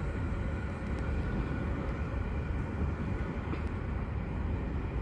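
A freight train of covered hopper wagons rolling along the track and away, a steady low rumble of steel wheels on rail.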